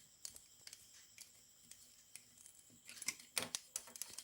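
Faint scattered clicks and small scrapes of hand work on electrical wiring: wire ends being fitted into the terminals of 2-way switches, with a quick flurry of clicks about three seconds in.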